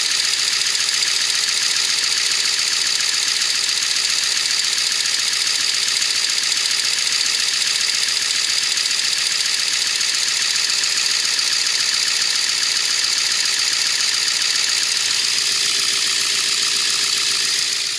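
Ford 7.3 Power Stroke V8 turbo-diesel idling steadily with its valve cover off, so the valvetrain and injectors are heard unmuffled.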